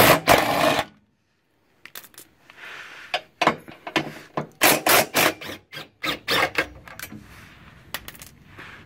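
Snap-on cordless impact wrench hammering on a crossmember bolt to undo it. It runs in short bursts: a longer one at the start, then several brief ones between about three and a half and seven seconds in.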